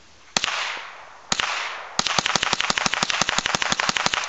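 .22 Long Rifle semi-automatic rifle firing: two single shots about a second apart, each with an echo trailing off, then a fast string of shots lasting about two seconds.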